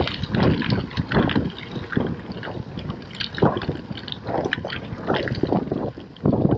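Scott Speedster gravel bike's tyres rolling and crunching over a loose dirt-and-gravel track, with uneven rumbling jolts and wind buffeting the action camera's microphone.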